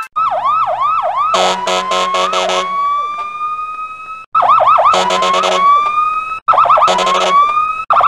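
Electronic police truck siren: a fast yelp of rapid up-and-down sweeps, a low pulsing horn, then a slow rising wail. The sequence cuts off and starts over three times, each run shorter than the last.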